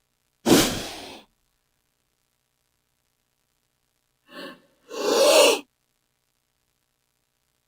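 King cobra hissing in three separate breathy bursts. The first is sharp and fades within a second; about four seconds in comes a short one, then right after it a longer, louder one.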